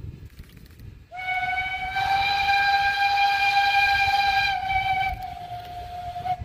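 Narrow-gauge steam locomotive's steam whistle giving one long blast of about five seconds, starting about a second in, its upper overtones thinning near the end.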